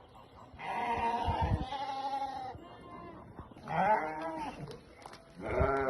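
Sheep bleating in three bouts, the first lasting about two seconds.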